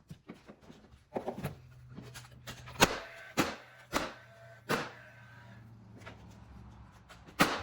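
Window trim being nailed into place: a series of sharp shots, four about half a second apart and another near the end, over a low steady hum.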